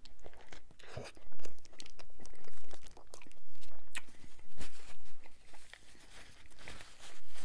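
A mouthful of Whopper burger bitten off and chewed close to the microphone, with wet chewing and crunching of bun and lettuce. A paper napkin rustles near the end.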